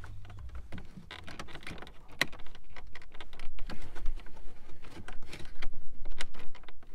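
Gloved hands working behind a 1992–95 Honda Civic's plastic dash panel, pushing a small switch out from behind: scattered small plastic clicks, knocks and rubbing, with one sharper click about two seconds in.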